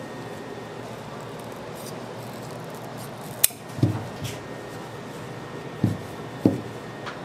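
A knife and pieces of hard candy handled on a work table. A sharp click comes about halfway through, then four dull knocks on the tabletop and a small click near the end, over a steady background hiss.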